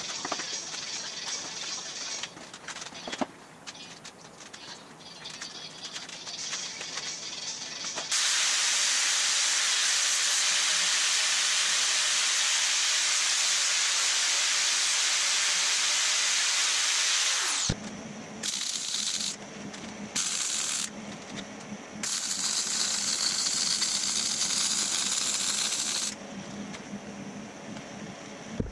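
Angle grinder grinding steel: a loud steady hiss for about ten seconds that cuts off with the disc winding down. Quieter shop noise comes before it. After it come several short loud bursts of hissing and another long stretch of grinding-like hiss.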